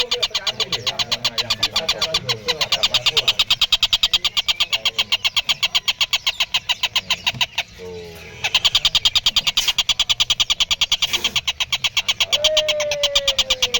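Tengkek buto kingfisher giving its long rapid-fire call: a fast, even, unbroken train of sharp high notes, about ten a second. It breaks off briefly about eight seconds in. Near the end a lower whistle falls in pitch.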